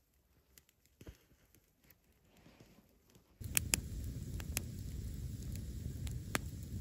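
Faint scattered ticks and a brief rustle, then, about three and a half seconds in, a wood fire burning between stacked logs comes in abruptly: a steady rush of flame with sharp crackles and pops.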